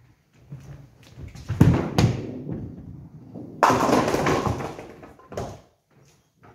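A nine-pin bowling ball thuds twice onto the lane, rolls, and about three and a half seconds in crashes into a full set of nine pins, which clatter down, with a last knock about two seconds later.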